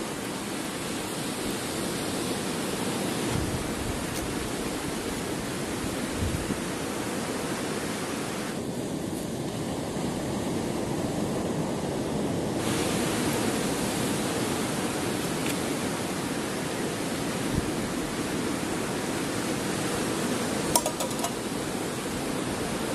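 Portable butane canister stove's burner running under a cooking pot with a steady rushing hiss, and a light knock near the end.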